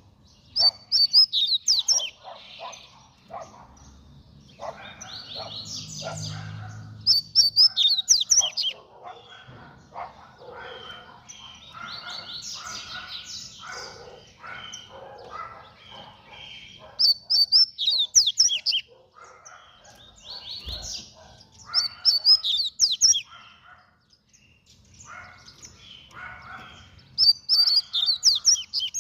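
Double-collared seedeater (coleiro) singing its fast song: short, loud bursts of rapid high notes repeated every few seconds, with softer twittering between the phrases.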